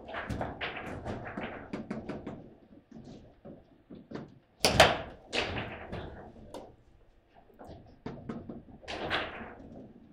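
Foosball table in play: sharp clacks and knocks of the ball and the plastic players on the rods, coming in clusters, with one loud, hard clack about halfway through.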